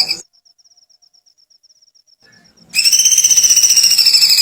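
A bird's rapid, high, pulsing trill that breaks off just after the start, leaving only a faint, thin version of the trill, then comes back loud about two and a half seconds later, dipping slightly in pitch before levelling out.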